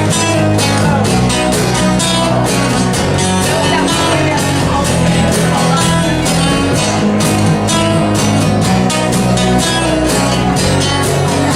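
Live country band playing an instrumental break: guitar over bass and a steady drum beat.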